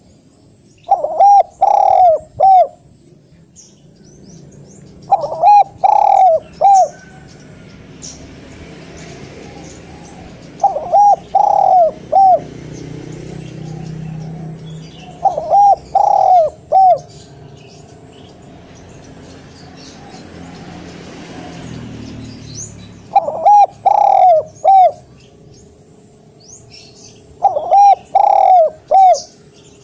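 Spotted dove cooing: six phrases of about four notes each, repeated every few seconds.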